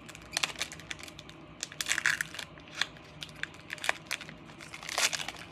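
Foil wrapper of a Pokémon Fusion Strike booster pack being crinkled and torn open, in irregular crackles with louder bursts about two seconds in and near the end.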